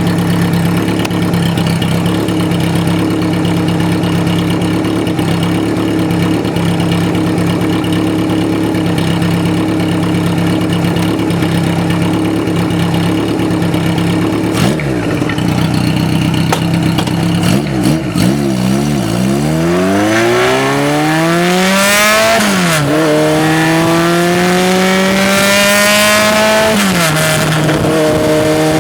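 Kawasaki 750RS (Z2) air-cooled inline-four running at a steady idle, then blipped a few times and revved up twice in long rising sweeps, each dropping back, before settling to idle again near the end.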